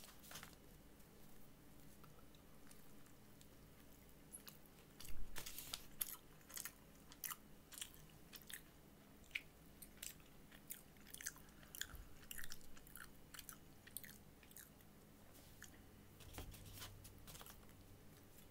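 Close-up chewing and crunching of fried food, with irregular crunches and mouth clicks starting about five seconds in; the first few seconds are nearly silent.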